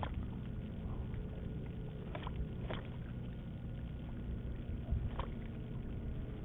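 Kayak on open water: a steady low rumble of wind and water with a few faint knocks, about two, three and five seconds in.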